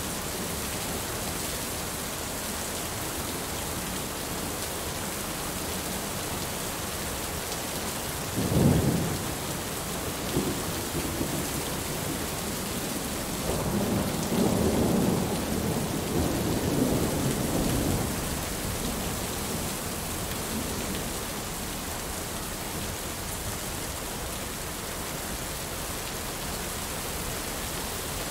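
Heavy rain falling steadily, with a sudden thunderclap about eight seconds in and a longer rumble of thunder from about halfway through that lasts several seconds.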